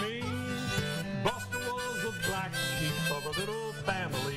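Harmonica played in a folk/blues style, with bent and sliding notes, over a strummed acoustic guitar.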